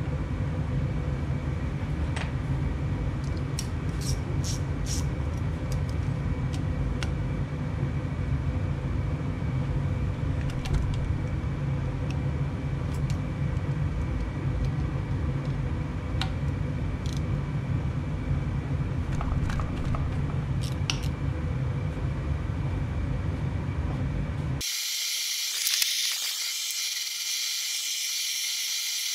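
A steady low rumble with scattered light clicks and taps of hand tools working the bolts on a Kawasaki Mojave 250 engine's cam holders. About 25 seconds in the sound cuts abruptly to a steady high hiss.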